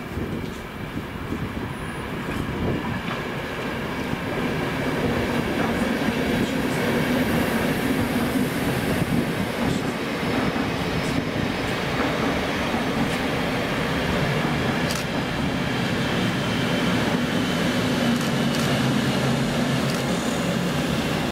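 ÖBB class 4020 electric multiple unit pulling into the station: wheels running on the rails under a steady motor hum. The sound grows louder over the first few seconds, then holds steady as the train comes alongside.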